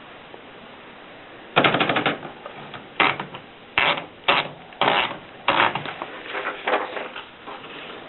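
Antique Adler typewriter being typed on: a quick run of key strikes about one and a half seconds in, then single strikes and short runs of clicks spaced roughly half a second apart.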